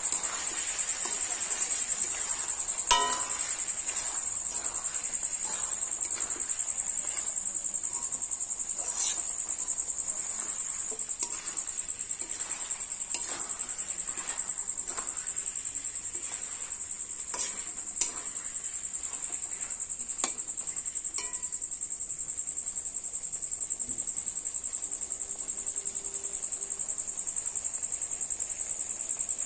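A cricket trilling steadily on one high, rapidly pulsing note, with scattered clicks and scrapes of a metal spoon against the metal kadai as the chicken curry is stirred.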